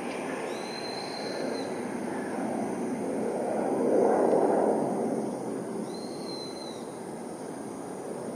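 Jet engine noise of an Embraer 170 airliner climbing away after takeoff: a steady rushing sound that swells to its loudest about four seconds in, then eases. Two short high whistles sound over it, one near the start and one about six seconds in.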